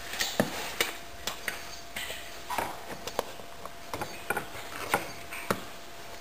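Irregular sharp clicks and light knocks, with a few short rubbery scrapes, as the inner tube is worked out of a dirt bike's rear tire.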